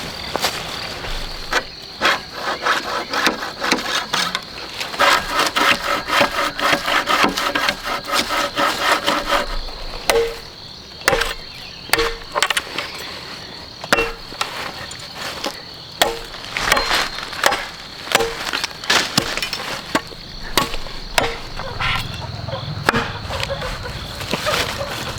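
Repeated sharp knocks, as of work on wood, coming about once a second in the latter half, over a steady high-pitched insect drone.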